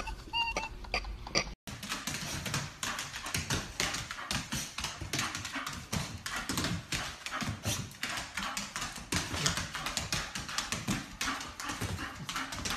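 Small white dog scrabbling about on a parquet floor: rapid, irregular clicking of its claws on the wood, mixed with grunting and snuffling.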